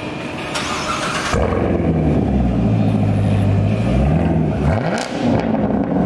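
Chevrolet Corvette C7 Stingray's 6.2-litre V8 starting up through its quad-tip exhaust, catching just over a second in, then idling with one quick blip of the throttle about five seconds in.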